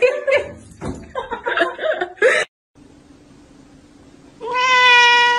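A person chuckling and laughing, then a cut to a cat giving one long, steady meow about a second from the end.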